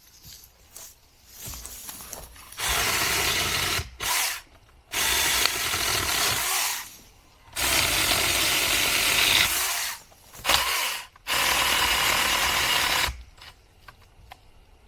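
Saker mini cordless electric chainsaw running in several bursts of a second to a few seconds each as it cuts small branches. Near the end it stops after the chain binds in the cut, which trips the saw's shutoff.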